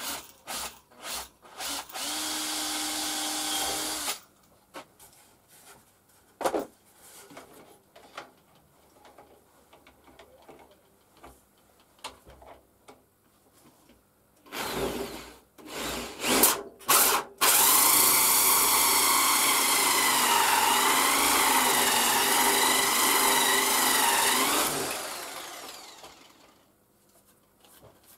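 Compact router cutting a circle in MDF. The motor runs briefly about two seconds in, blips on and off a few times, then runs steadily for about seven seconds, its pitch wavering under the load of the cut, before it winds down.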